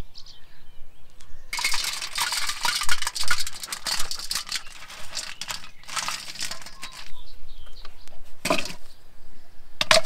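Pebbles dropped and spread over the bottom of a rusty metal bucket: several seconds of dense clattering and clinking of stones on stone and metal. A couple of single knocks follow near the end.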